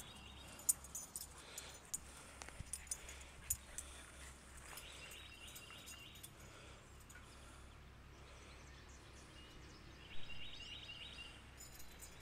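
Faint sounds of two dogs playing with a bone: scattered light clicks and scuffles early on. A short run of high, quickly repeated chirps comes about five seconds in and again near ten seconds.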